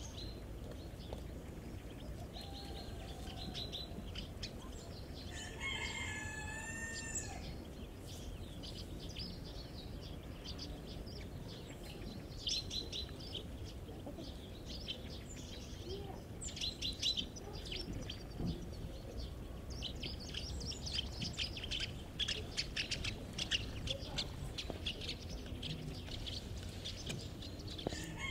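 Chicks peeping in quick, high chirps, most densely through the second half. About six seconds in, a rooster crows once.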